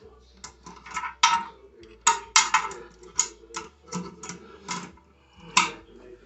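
Irregular sharp metal clicks and clinks, some briefly ringing, from tightening the nuts on a toilet's closet bolts at its base.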